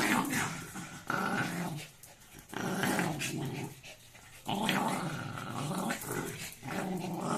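Small spitz-type dogs growling in repeated bouts of about a second each as they squabble over a cloth toy. It is possessive growling from a dog guarding the toy it won't give up.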